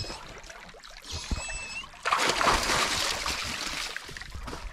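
Lake water splashing and sloshing around a German Shepherd swimming with a stick in its mouth, loudest for about two seconds in the middle. A brief high-pitched call sounds about a second in.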